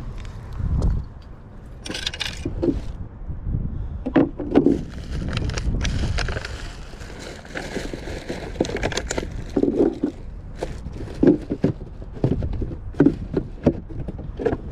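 Handling noise from a body-worn camera as the wearer shifts on rock: rustling and scraping with scattered clicks and knocks over a steady low rumble.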